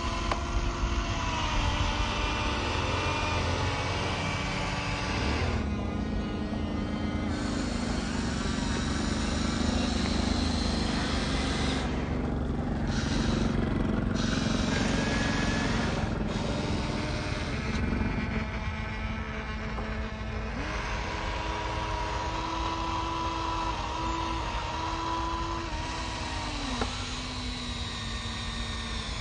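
Small electric motors and gearboxes of radio-controlled construction models whining as they work. The pitch steps up and down as motors start, stop and change speed.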